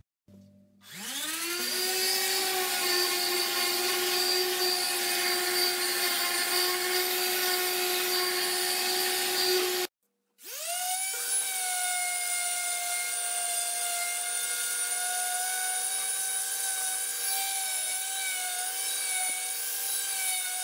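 DeWalt random orbit sander with a dust-extraction hose attached, spinning up and running steadily while sanding an oak frame with 120-grit paper. The sound breaks off near the middle, then spins up again at a higher pitch and runs steadily.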